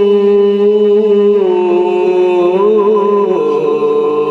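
A male qari holding long melodic notes of Quran recitation (tilawat) into a microphone. The note glides down about a second and a half in, wavers, and shifts again near the end.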